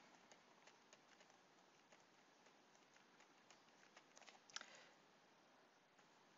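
Near silence with faint, scattered clicks of a stylus tapping and writing on a tablet, with a slightly louder cluster of clicks about four and a half seconds in.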